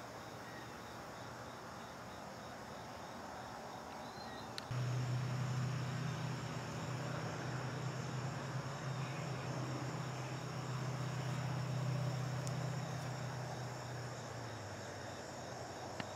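Insects chirping steadily, high-pitched. About five seconds in, a steady low hum starts with a click and becomes the loudest sound, fading away near the end.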